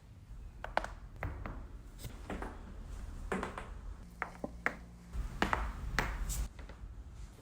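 A person's back and joints cracking: a dozen or so sharp pops and clicks at uneven intervals, over a low rumble.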